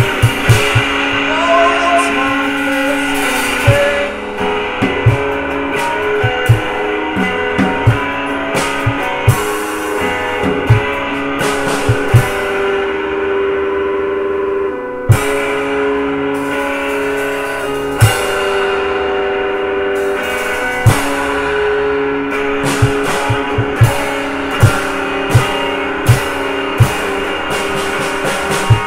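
Guitar and drum kit playing an instrumental passage: held guitar notes, one bent upward near the start, over steady drum hits and cymbals, with quick runs of kick drum at the start and again near the end.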